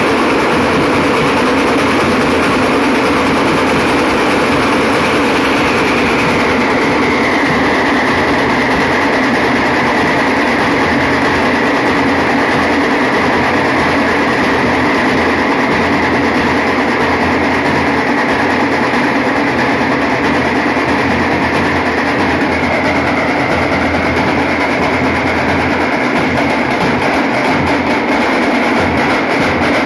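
Dhol-tasha troupe drumming: many dhol barrel drums and tashas playing together in a loud, fast, unbroken rhythm.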